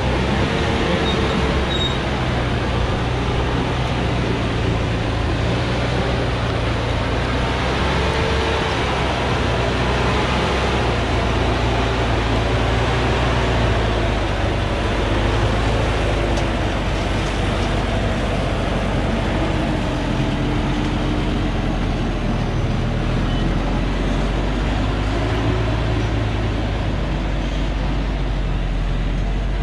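Diesel engine of a Thaco Forland truck loaded with acacia logs, running hard under load as it climbs a muddy track close by. Its note rises and falls with the throttle.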